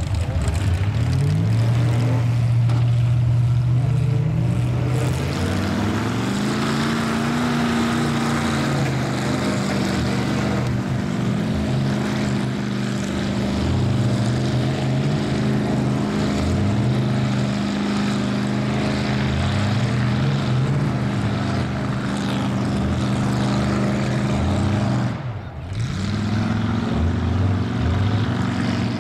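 Square-body Chevy mud bogger's engine revving hard as the truck runs the mud pit: the revs climb in surges, are held high for a long stretch, drop sharply near the end and climb again, over the noise of the tires churning mud.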